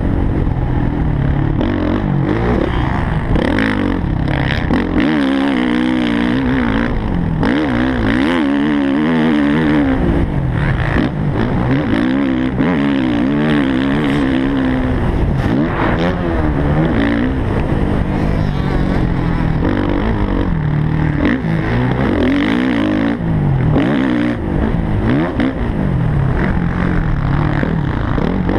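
Suzuki motocross bike's engine running hard around a dirt track, its revs rising and falling again and again as the throttle is worked through jumps and corners.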